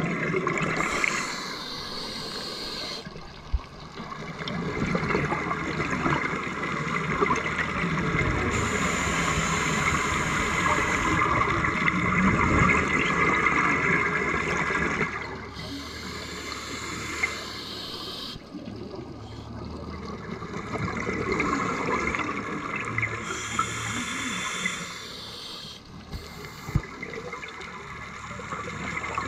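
Underwater bubble noise from scuba divers' regulator exhalations: four rushing, gurgling bursts several seconds apart over a steady underwater hiss.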